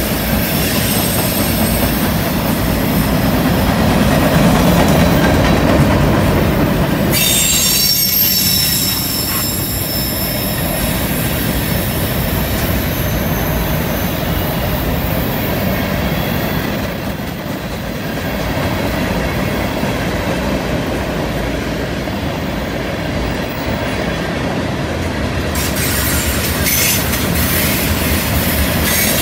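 Freight train of tank cars and covered hoppers rolling past on a curve: a steady rumble of wheels on rail with clickety-clack. The wheel flanges squeal high and thin on the curve, loudest about a quarter of the way in and again near the end.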